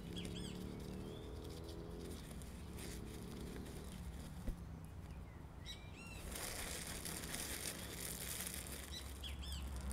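Birds chirping in short calls, three times, over a low steady background. From about six seconds in there is a rustling of hands in a cloth bag and plastic wrapping.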